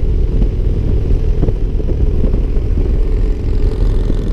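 Harley-Davidson Ultra Limited touring motorcycle's V-twin running steadily at cruising speed, a continuous low rumble with road and wind noise, recorded on the moving bike.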